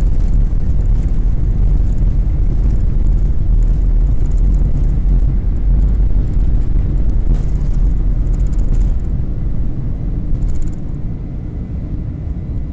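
Airliner cabin noise during takeoff: jet engines at takeoff power and a heavy, steady low rumble, which eases somewhat about ten seconds in.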